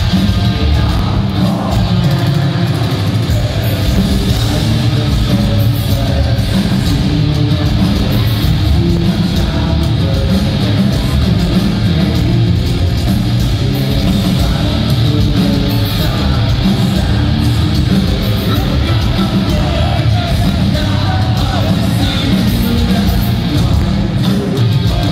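A live nu-metal band plays loud through an arena PA: distorted guitars, bass and drums, with vocals, recorded from within the crowd. The bass dominates.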